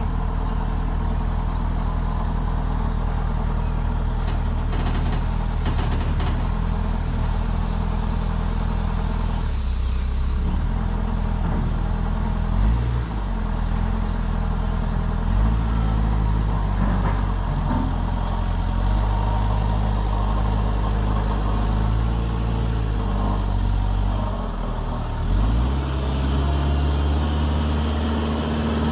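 Truck-mounted piggyback forklift's engine running, its revs stepping up and down several times as the forklift is worked off the back of the flatbed trailer.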